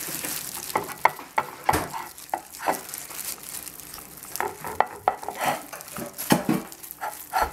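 Gloved hands rubbing ground dried lemon into a raw chicken breast on a plate: an irregular run of soft smacks and squelches, a few a second, as the meat is pressed, turned and lifted.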